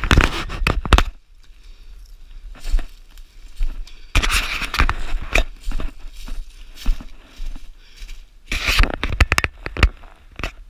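Footsteps crunching through dry leaf litter and twigs on the forest floor, with brush scraping past, in three loud spells: near the start, around the middle and near the end, with scattered snaps in between.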